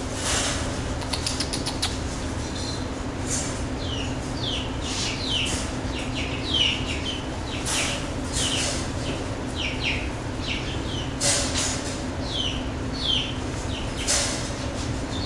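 Young Basenji puppy whining in short, high-pitched squeaks that fall in pitch, repeated over and over, with a few brief bursts of rustling from handling.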